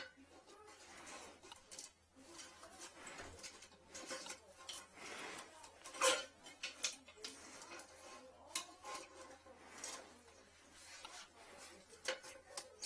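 Irregular metallic clicks and scraping as a metal retrieval tool works against the porcelain toilet bowl and drain opening, fishing for a toothbrush lodged in the toilet. The sharpest click comes about halfway through, with a quick run of clicks near the end.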